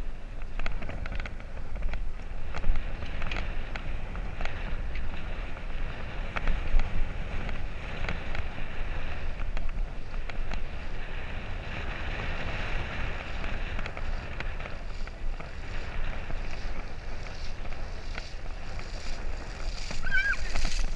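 Wind buffeting the microphone of a camera riding on a moving bicycle, a steady low rumble, with scattered light clicks and rattles from the bike rolling over paving stones. A short high chirp comes near the end.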